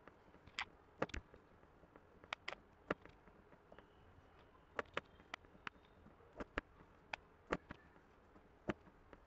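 Wooden rolling pin rolling out a stuffed paratha on a steel plate: faint, irregular clicks and knocks, one or two a second, as the pin and plate shift under the hands.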